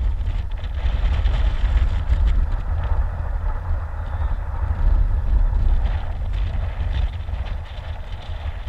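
Wind buffeting the camera's microphone: a loud, uneven rumble with a rushing hiss over it.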